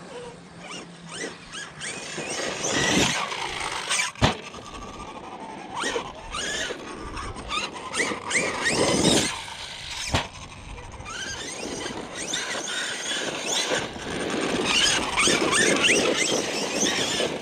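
Electric RC monster trucks' brushless motors whining up and down in quick glides as they accelerate and brake, with two sharp knocks from hard landings.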